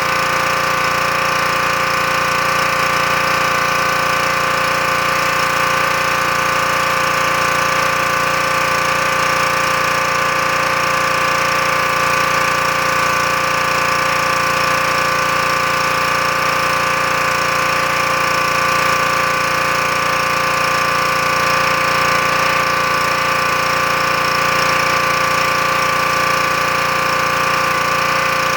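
Troy-Bilt gas pressure washer's engine running steadily under load, with the hiss of water spraying from a 15-inch surface cleaner working over asphalt.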